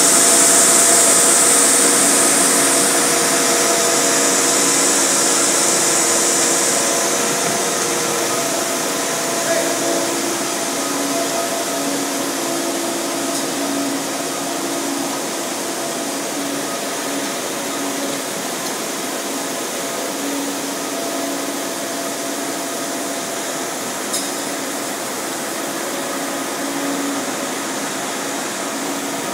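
Steady mechanical whooshing with a few humming tones that come and go. A hiss that is loudest at the start fades over the first several seconds.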